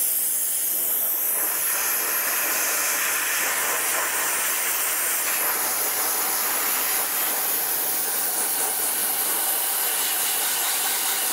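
Dry ice blasting wand firing compressed air and dry ice pellets at an alloy wheel: a loud, steady hiss that cuts in suddenly and holds evenly.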